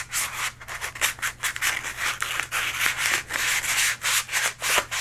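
Hand sanding a model rocket's plastic nose cone with a folded sheet of 220-grit sandpaper: quick back-and-forth rubbing strokes, about four a second. The paper is roughing up the glossy surface and wearing down the moulding line on the cone.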